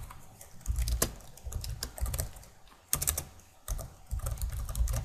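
Typing on a computer keyboard: key clicks in short, uneven bursts with brief pauses between them.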